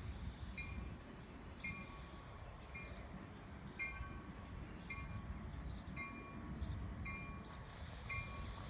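Grade-crossing warning bell ringing at an even pace, about once a second, over a low steady rumble.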